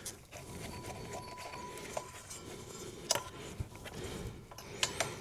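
Faint handling noise of speaker cables and spade connectors being fitted to amplifier binding posts, with a few small sharp clicks about two, three and five seconds in.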